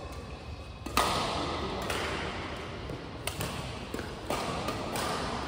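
Badminton rackets striking the shuttlecock during a doubles rally: a series of sharp smacks echoing in a large hall, the loudest about a second in.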